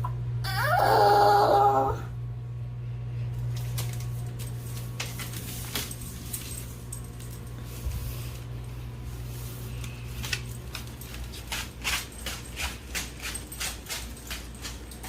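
A dog vocalizing loudly in one pitched cry lasting about a second and a half near the start, then a run of quick clicks and taps in the second half over a steady low hum.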